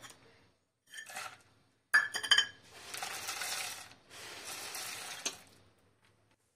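Fried boondi and nuts tipped from a steel plate into a brass bowl of sugar syrup: a few sharp metallic clinks about two seconds in, then two stretches of pattering rattle as the boondi slides in.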